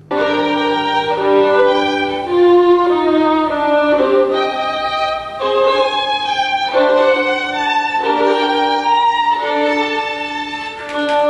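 Instrumental music with a melody of held notes, starting abruptly.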